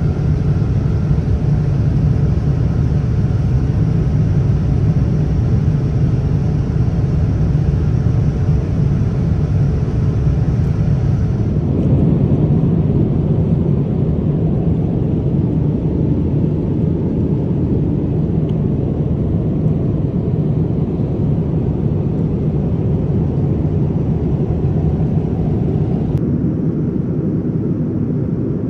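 Steady low rumble of a Boeing 787-9 airliner cabin, a dense noise without distinct tones. Its colour shifts about twelve seconds in and again near the end.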